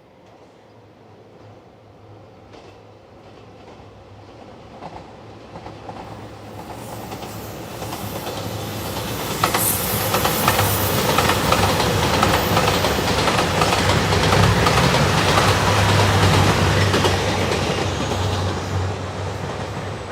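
A train approaching and passing close by, growing steadily louder over about ten seconds, with a steady low hum and wheels clicking over the rail joints.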